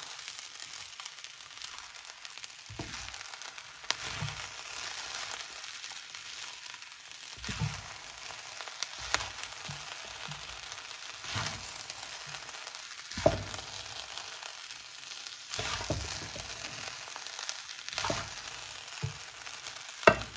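Fried rice with vegetables sizzling in a hot pan as it is stirred and tossed with a wooden spatula, with a steady hiss broken by short scrapes and knocks of the spatula about every couple of seconds.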